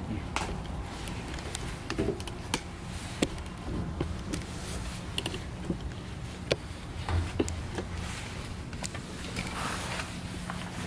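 Footsteps and hand knocks on a steel ladder and stair as people climb down: scattered, irregular clanks and taps over a steady low hum.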